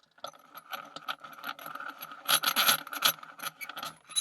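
Metal rattling, clicking and scraping of a rusty padlock being handled and clamped into a vise, with the loudest clatter around the middle.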